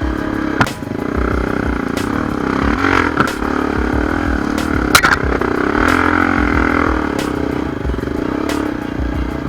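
Honda XR250 Tornado's single-cylinder four-stroke engine running under load on a trail climb, the revs dipping and rising a few times. Sharp knocks and clatter sound now and then, loudest about five seconds in.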